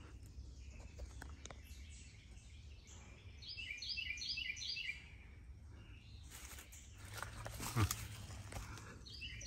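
A bird sings a short run of repeated high notes about three and a half seconds in, over quiet woodland background. Near the end there is brief scraping and rubbing as the camera is pushed against the stone wall.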